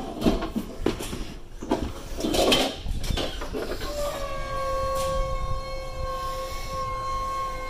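Electric one-person vertical mast lift: a few knocks of the metal basket first, then about four seconds in its motor starts with a steady whine, rising slightly at the start, as the platform lifts.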